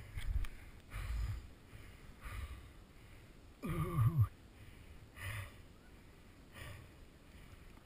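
Hard, rhythmic breathing of a rider going through deep powder snow, a puff about every second with a low thump of wind or snow on the helmet microphone. About four seconds in there is a short voiced cry falling in pitch.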